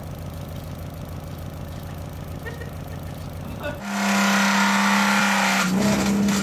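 A car engine idling with a low, even rumble. About four seconds in, after a cut, comes a louder, steady high-revving drone from a Holden Commodore's engine held at speed, with a hiss over it, rising slightly near the end.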